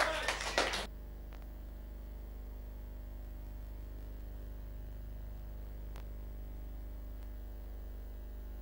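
Music cuts off about a second in, leaving a steady low electrical hum with faint hiss, the background of a VHS home-video recording.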